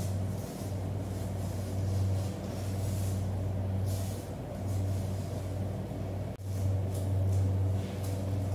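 A steady low machine hum, with faint soft scraping of a large knife working the skin off a bluefin tuna. The hum drops out for an instant about six seconds in.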